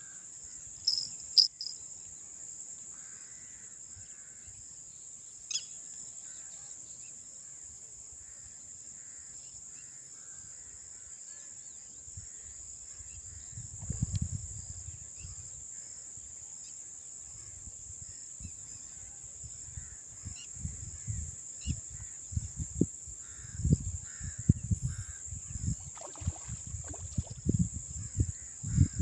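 Steady high-pitched drone of insects, with crows cawing faintly now and then. Irregular low rumbling bumps come in about halfway and grow busier near the end.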